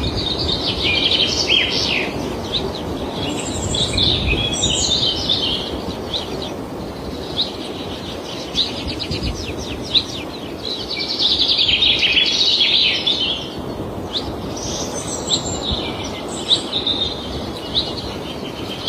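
Several small birds chirping and singing in quick, repeated bursts over a steady low hum of open-field noise, with a few short knocks between them.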